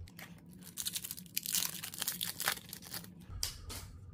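Plastic wrapper of a hockey trading-card pack crinkling and tearing as the pack is pulled from the box and ripped open, a dense run of crackles through the middle that dies down near the end.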